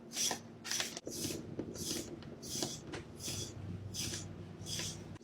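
EquiGroomer de-shedding brush raking through a long-haired cat's fur in repeated strokes, about two a second, each a short scratchy swish. A faint steady hum runs underneath.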